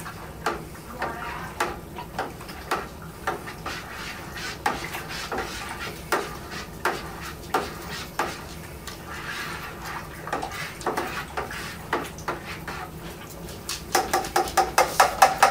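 Kitchen utensils and containers knocking and clinking, irregular knocks about once or twice a second, then a quick run of ringing clinks near the end.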